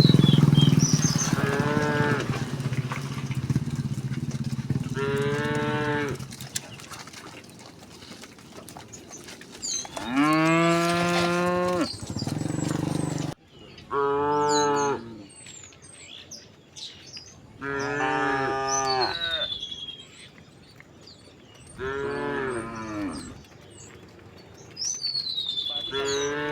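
Cows mooing, about eight separate calls of a second or two each, one long low moo near the middle, with small birds chirping faintly in the background. A low rumble fades out over the first few seconds.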